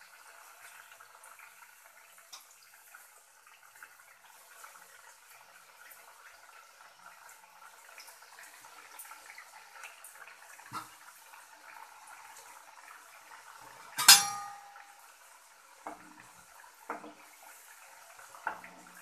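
Thekua dough pieces deep-frying in oil that is only moderately hot, with a soft steady sizzle and fine crackle. About two-thirds of the way through a utensil strikes the pan once with a loud ringing clink, then a few lighter knocks follow as a spatula moves the pieces.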